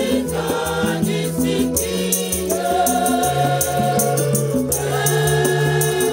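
Women's choir singing in several voices to a steady beat of drum and rattle.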